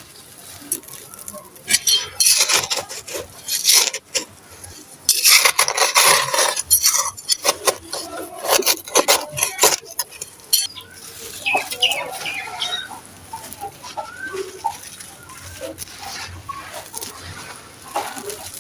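Dry, gritty sand-cement chunks being crumbled and crushed, heard as bursts of crackling grit loudest about two and five seconds in. In the second half, short bird calls sound in the background.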